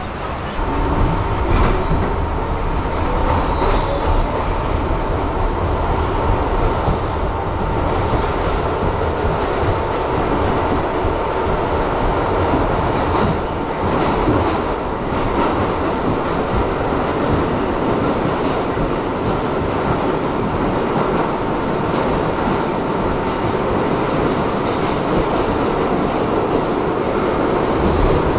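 New York City subway train running: a dense, steady rumble of wheels on rail, with a steady high whine through roughly the first half that then fades.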